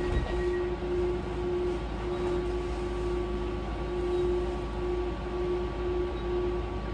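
S-Bahn electric train running: a steady low rumble with a mid-pitched hum that drops out and returns every second or so.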